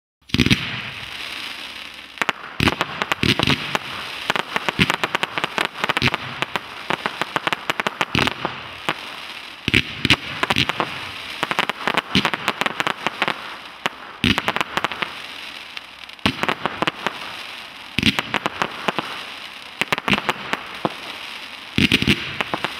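Tropic TB 239 firework going off. It starts suddenly, then keeps up a steady crackle of many small pops, with louder shots about every two seconds.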